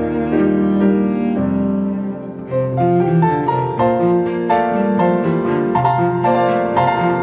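Background instrumental music: piano notes over held low bowed strings, in a classical style.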